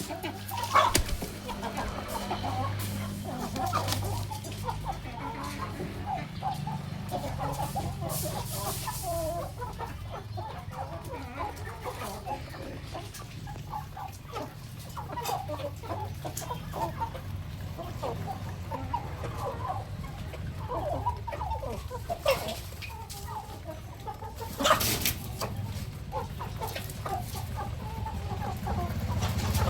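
A flock of free-ranging village chickens clucking continuously while feeding, with occasional sharp pecks or knocks.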